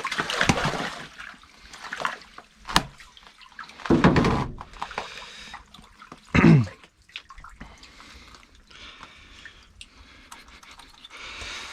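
Irregular splashing and dripping of water with handling noises: bursts of rustling and scattered clicks and knocks, the loudest a short burst about six and a half seconds in.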